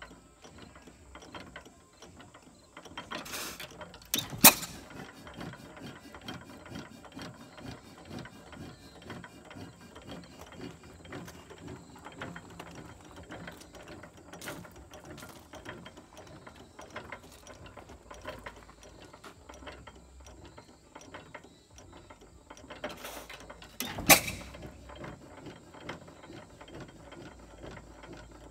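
6 hp Associated hit-and-miss engine coasting between firings, its valve gear and governor clicking steadily, with two sharp firing strokes, one about four seconds in and another some twenty seconds later, the loudest sounds here.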